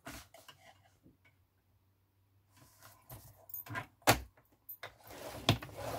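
Hobbycraft paper trimmer's blade carriage drawn along its rail, cutting the sheet of paper, with a few sharp clicks and a scraping slide. The cutting blade is in use where the scoring blade was meant.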